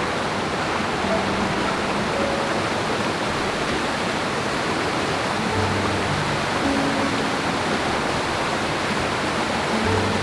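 Waterfall rushing steadily, an even wash of falling water, with a few faint, short musical notes over it.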